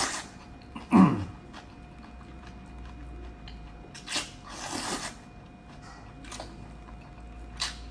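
Noodles slurped off chopsticks in short noisy sucks, with chewing in between: a slurp at the start, two around four and five seconds in, and a brief one near the end. About a second in, a short, loud, low vocal sound falls in pitch.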